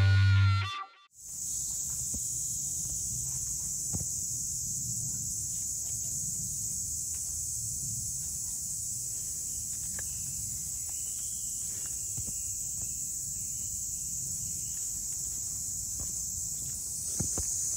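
Steady high-pitched chorus of insects with a low outdoor rumble and occasional faint clicks; a guitar tune cuts off about a second in.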